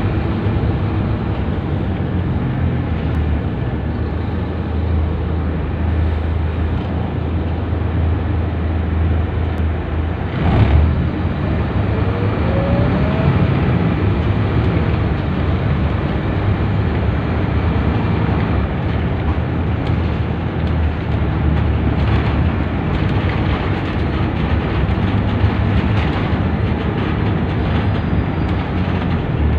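Scania K230UB city bus heard from inside the cabin while under way: its rear-mounted diesel engine runs steadily under road and body noise. A single thump comes about ten seconds in, followed by a short rising whine.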